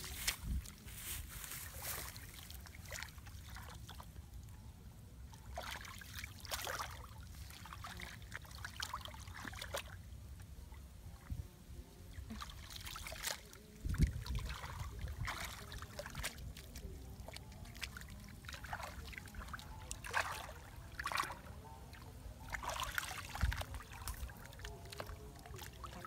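Hands groping and scooping through shallow muddy water and mud while catching fish by hand: a run of small splashes, sloshes and wet squelches at irregular intervals, with a low thump about halfway through.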